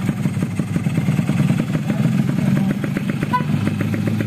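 Yamaha RX-King's two-stroke single-cylinder engine running steadily through its exhaust, with a fast, even beat of firing pulses.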